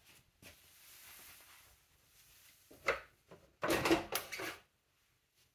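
The metal engine-side cowl of a 1958 NSU Prima scooter being unlatched and lifted off: faint shuffling at first, a sharp click about three seconds in, then about a second of metal clatter as the panel comes away.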